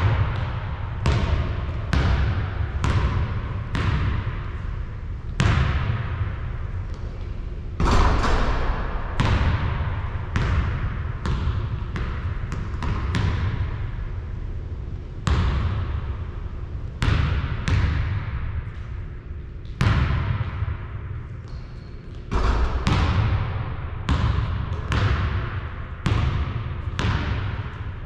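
Basketball bouncing on a court: irregular thuds about once a second, each with a reverberant tail.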